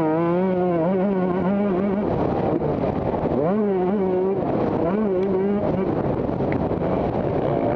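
Motocross dirt bike engines revving, their pitch rising and falling with the throttle, with a continuous rasp of engine noise underneath. The clearest engine note comes for the first two seconds and again in the middle.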